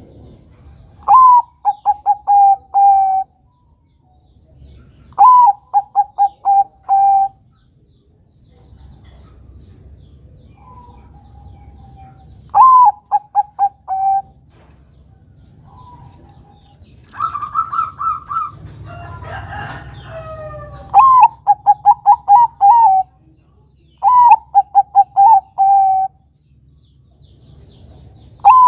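Zebra dove (Bangkok perkutut) singing: about six loud cooing phrases, each a rising opening note followed by four or five quick, lower, evenly spaced coos. Past the middle there is a higher run of notes and a brief noisy patch between phrases, over a faint low hum.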